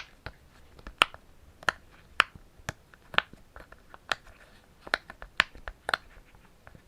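Silicone pop-it fidget toy bubbles being pressed one after another, giving short, sharp pops about two a second.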